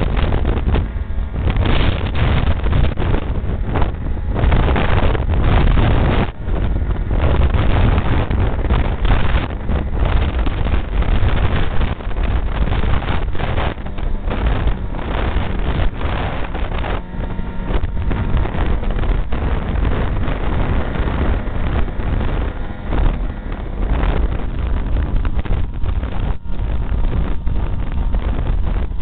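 Ski-Doo Rev snowmobile running at speed on a snow trail, its engine and track noise steady and loud, with wind buffeting the camera's microphone so the level wavers constantly.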